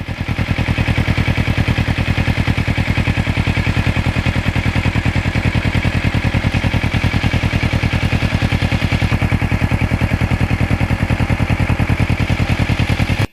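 Kawasaki Ninja 650R's parallel-twin engine running at a steady speed, with an even, rapid pulsing beat that holds without revving.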